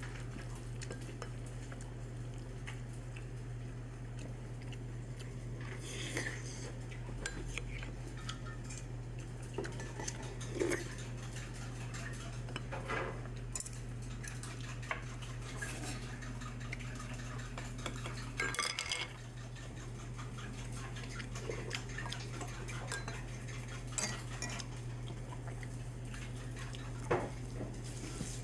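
Wooden spoon scraping and knocking against a ceramic bowl as it stirs and scoops a rice bowl, in scattered short clicks over a steady low hum.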